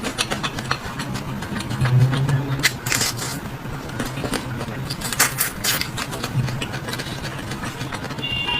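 Eating sounds of someone eating fast: irregular wet smacks and clicks over a steady low hum. A short high tone sounds near the end.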